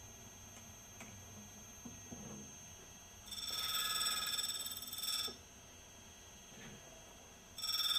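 An end mill's corner is ground against a spinning cup grinding wheel, giving two spells of high-pitched ringing grind made of several tones: one about two seconds long, then a shorter one near the end. Underneath is the faint steady whine of the running wheel.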